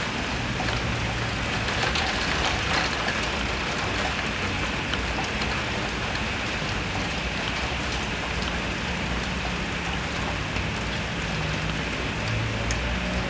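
Heavy rain falling steadily, a dense even hiss with scattered sharp drip ticks.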